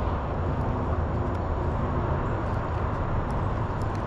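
Steady low rumble of road traffic, with a few faint ticks.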